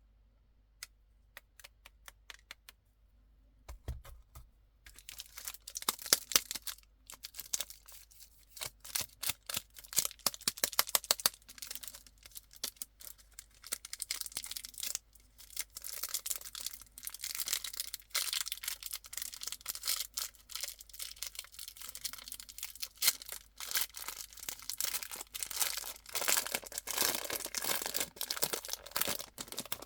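Plastic candy wrappers and packaging being handled, crinkling and tearing. A few scattered clicks open it, and about five seconds in a dense, continuous crackle begins that gets busier near the end.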